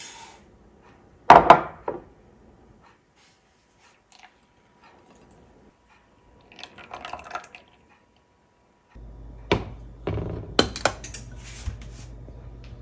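Kitchen handling of a stainless steel saucepan: a sharp knock about a second in as sugar is tipped from a bowl into the pan, then a soft pour of coconut milk into it. In the last few seconds a low steady hum with a few clicks as the pan sits on a glass-top electric stove.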